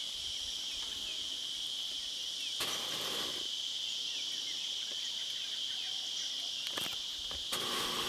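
A steady, high-pitched insect chorus shrilling without a break, with a brief rush of noise about three seconds in.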